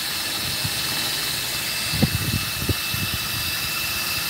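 Cordless drill with a mixing paddle running steadily in a large bucket of epoxy, a constant motor whine over a hiss, with a couple of low knocks about two seconds in.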